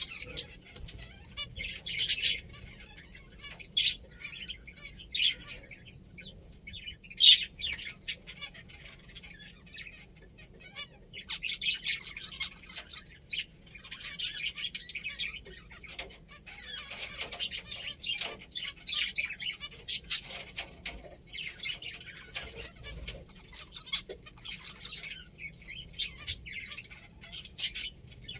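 Pet finches chirping in scattered short bursts, with a few louder calls.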